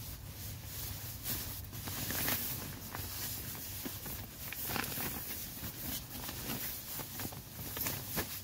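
Irregular rustling and crinkling of a sleeping bag and tent fabric as a person shifts around lying down inside a small tent.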